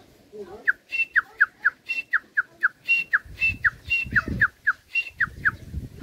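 A man whistling an imitation of the grey francolin's call: a fast, even run of short falling whistles, about four a second, with a higher clipped note every few. It starts just under a second in.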